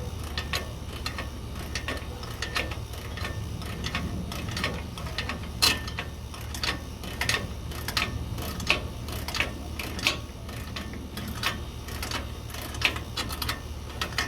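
Ratchet wrench clicking in short irregular strokes, about one or two clicks a second, while tightening the clamp bolts of trailer bunk guides, over a steady low hum.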